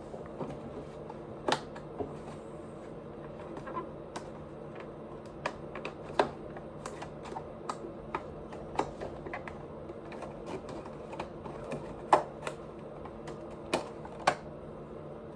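Close-miked eating: irregular, sharp little clicks and smacks, loudest about a second and a half in, at six seconds and at twelve seconds. A steady low hum sits under them.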